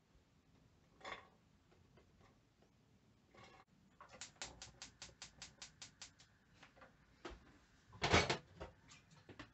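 Gas hob spark igniter clicking rapidly, about five clicks a second for some two seconds, as a burner is lit under a pan. A short knock about a second in and a louder clatter near the end.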